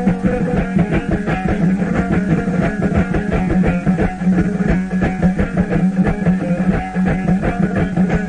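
Instrumental music on plucked string instruments: rapid, continuous plucking over a steady low note, with no singing.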